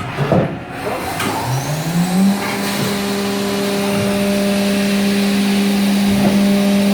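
Haas VF-2SS CNC mill spindle spinning up with a rising whine, then holding a steady, loud tone at 12,000 RPM. Its 1-inch two-flute Walter end mill is cutting aluminium at high feed, over a steady rush of noise.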